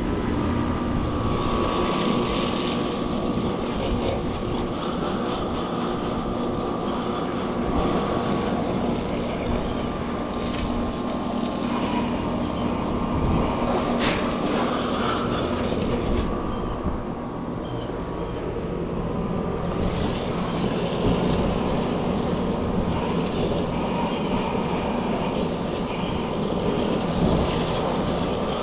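Garden hose spraying water onto a running heat pump outdoor unit: a steady hiss of spray over the steady hum of the compressor and condenser fan. The spray stops for about three seconds a little past halfway, then starts again.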